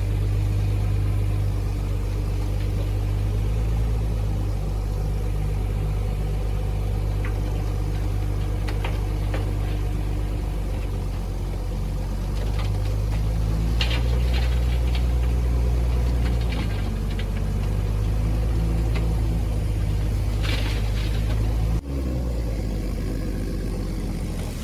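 Heavy diesel engine of earthmoving machinery running steadily, working harder for a few seconds about halfway through, with scattered clanks and rattles. The sound changes abruptly near the end.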